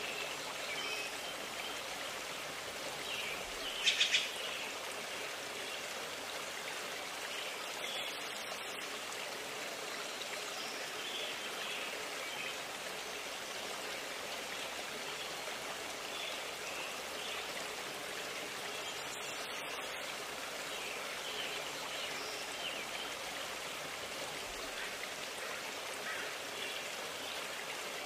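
A forest stream running steadily, with birds chirping briefly now and then. About four seconds in, three quick sharp clicks stand out above it.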